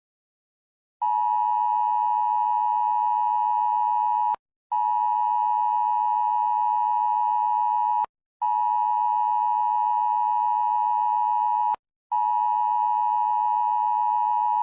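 Electronic emergency-broadcast alert tone: a steady mid-pitched beep held for about three and a half seconds, repeated with short breaks, three times and a fourth starting near the end.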